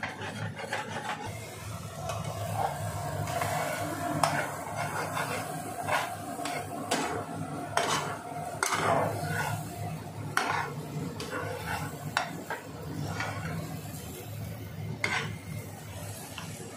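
Scrambled eggs and rice being stirred and scraped in a pan, with irregular clinks and scrapes of the utensil against the pan over a light sizzle of frying.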